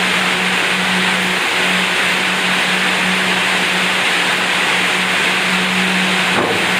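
A machine's electric motor running steadily, with a constant hum under a loud, even hiss.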